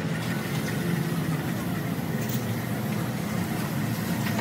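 An engine idling steadily, a low even hum.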